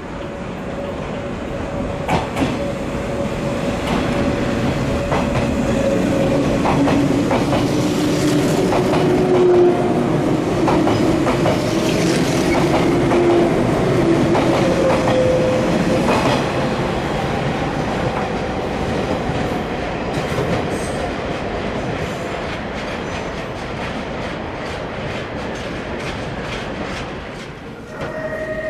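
485-series electric train passing on the rails, its wheels clicking over the rail joints with a drawn-out whine; the sound swells to its loudest about ten seconds in and slowly fades.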